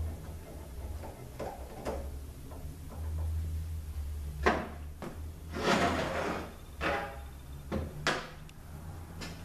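Hand tools and small metal parts handled while bolts are fitted to a transmission valve body: scattered clicks and clinks, and a longer scraping rattle about six seconds in, over a steady low hum.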